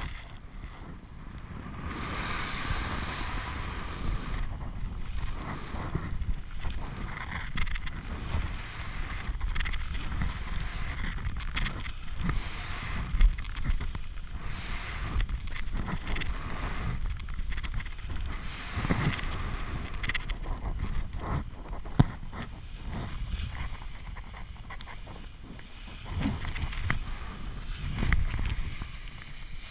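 Airflow buffeting an action camera's microphone in flight under a paraglider, a rough rushing that surges and eases as the wing swings through steep manoeuvres. Two sharp knocks stand out, about 13 and 22 seconds in.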